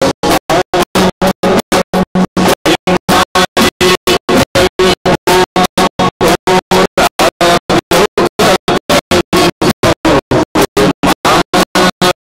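Live stage band music, with men singing into microphones over drums and keyboards. The sound is chopped into rapid dropouts, cutting to silence about five times a second throughout.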